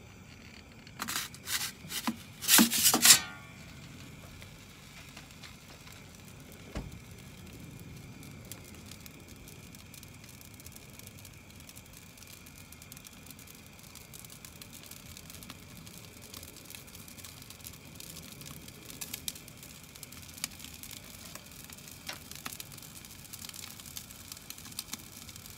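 A metal pizza peel scraping and sliding on the Roccbox oven's stone floor as a pizza is launched, several short scrapes a second or two in, the last the loudest. After that the gas burner runs with a low steady hiss and faint ticks.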